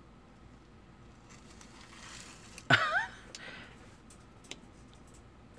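Hands handling small model parts on a hobby desk: a soft rustle, then a brief sharp squeak with a falling pitch about three seconds in, followed by a couple of light clicks.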